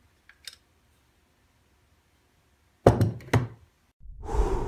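A few faint clicks, then two heavy thunks close together about three seconds in. Near the end a swelling whoosh with a steady hum begins, a transition sound effect that comes in with the channel's title card.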